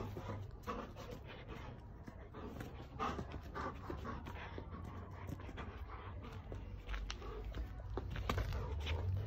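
A Shepadoodle panting close by, with scattered soft clicks and knocks, more of them near the end.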